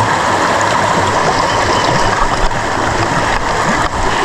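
Stream water rushing, a loud steady noise that holds without a break.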